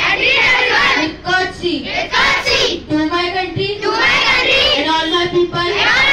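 Children singing a song, with held notes and short breaks between phrases.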